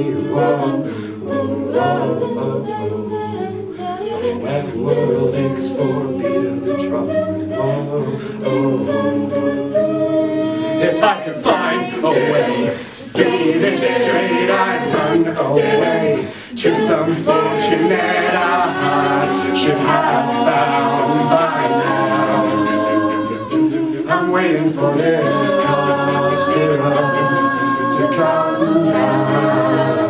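A mixed a cappella group singing a pop song arrangement: a male lead voice over backing voices in close harmony, with no instruments.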